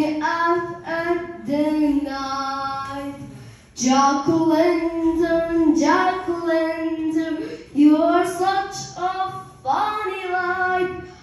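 A young girl singing alone, with no accompaniment, in short phrases with held notes and brief breaks between them.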